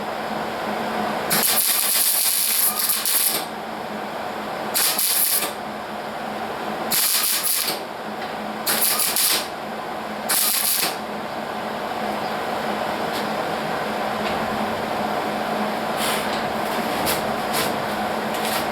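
Hobart Handler 140 110-volt MIG welder laying tack welds on sheet metal: five separate bursts of arc sizzle, the first about two seconds long and the rest under a second each, with a few fainter short bursts near the end.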